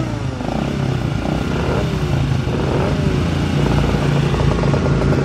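Classic racing motorcycle engine running with the throttle blipped several times, the revs jumping up and falling back each time before settling into steadier running near the end.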